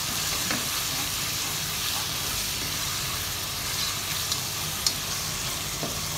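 Chopped tomatoes and onions sizzling in hot oil in a non-stick pan, stirred with a plastic spatula, as a steady hiss. A couple of light spatula clicks against the pan come near the end.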